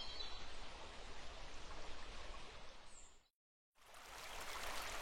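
A steady outdoor ambience bed fades out about three seconds in, then after a brief silence a steady rushing stream sound fades in.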